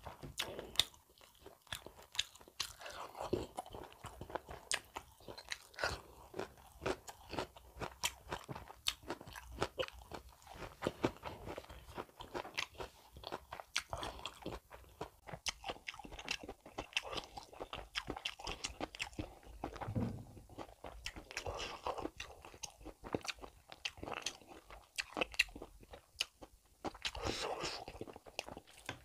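Close-miked chewing of beef curry and rice, with a steady run of short, wet mouth clicks throughout.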